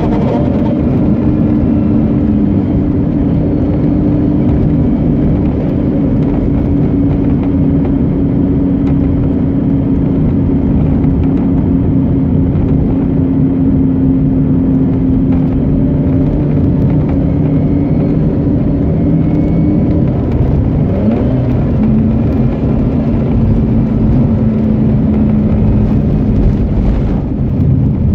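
Mazda RX-8's Renesis two-rotor Wankel engine running while the car drives at a steady speed, a steady drone that drops briefly and settles at a lower pitch about twenty seconds in.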